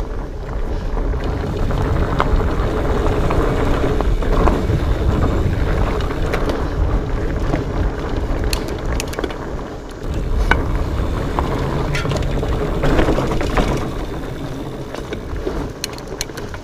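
Specialized Fatboy fat bike riding rough singletrack: a steady low rumble from the fat tyres rolling over dirt and rocks, with scattered clicks and knocks as the bike rattles over obstacles.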